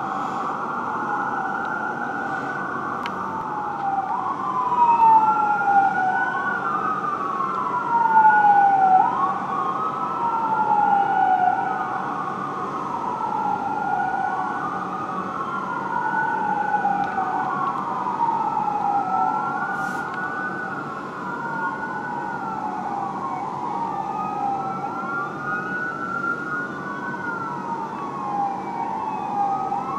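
Fire engine siren wailing, sweeping up and down about every two and a half seconds, with wails overlapping out of step. It is loudest around five and eight seconds in.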